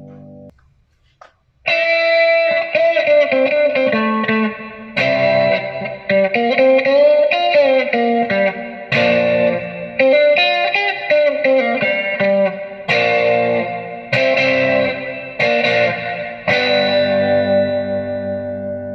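Electric guitar played through a VOX VT40X modelling amp with light overdrive and effects: chords and a short melodic line. It starts after a brief silence about two seconds in and finishes on a chord left ringing out.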